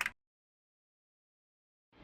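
Silence: the sound track drops out completely, with only the last of a clicking sound at the very start and music beginning to swell in at the very end.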